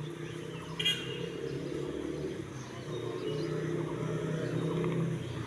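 Outdoor background: a steady low engine-like hum with birds chirping faintly, and one brief sharp call about a second in.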